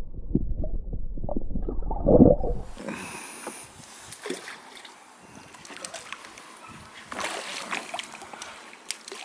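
Muffled water sloshing heard through an underwater camera as a pike is released by hand, with a loud surge about two seconds in. It then gives way to quieter splashing at the surface as a fish is brought to a landing net.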